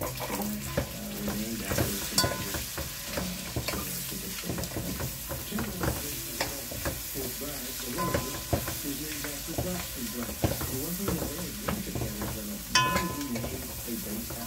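Beef and curry frying in oil in a large metal pot, sizzling, while a spoon stirs through it and clicks and scrapes against the pot, with a sharper ringing knock near the end.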